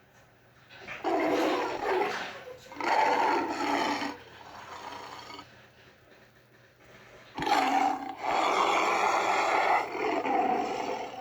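Custom monster roar sound effect, made as a creature's voice. Two roars of about a second each come in the first four seconds. After a quieter stretch, a longer roar starts about seven seconds in and fades near the end.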